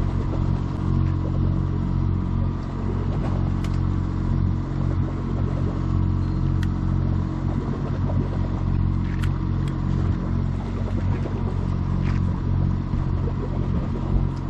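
Boat engine running steadily at low revs, a constant low hum, with a few light clicks from gear on deck.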